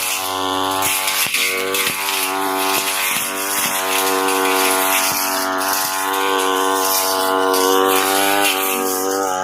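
Brush cutter engine running at high speed, its small blade cutting through thick Napier grass with a series of sharp ticks as it strikes the stems; the engine pitch sags and recovers under the load.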